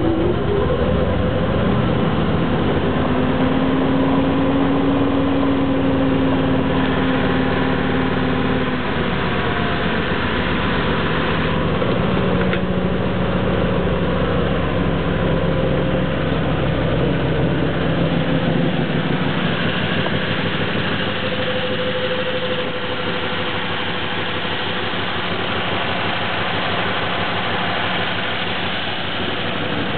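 Daimler 5.4-litre overhead-valve straight-eight engine running steadily just after a cold start. It is at a fast idle, on choke, with the hand throttle set to fast.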